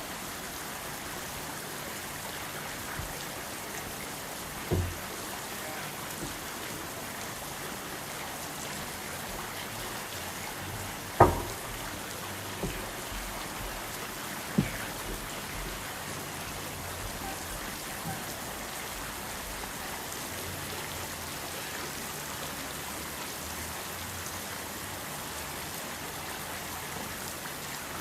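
Steady hiss of water, with a few short, sharp splashes from a duckling diving, the loudest about eleven seconds in.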